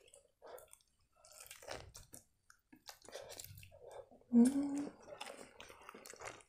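Close-up chewing of a mouthful of shawarma: soft wet smacking and squishing mouth sounds. About four and a half seconds in comes a short hum of the voice, the loudest sound.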